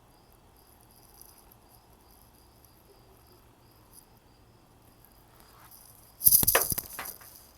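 Cricket chirping steadily, a faint high-pitched chirp repeating about three times a second. About six seconds in there is a loud rustle lasting about a second.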